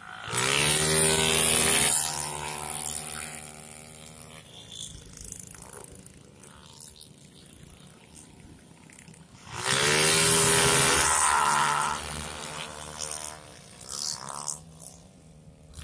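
Racing motorcycles passing close at full throttle, twice: one pass about half a second in and another about ten seconds in, each loud for about two seconds with the engine pitch dropping as they go by, then fading away. Fainter engines of bikes further round the circuit run in between.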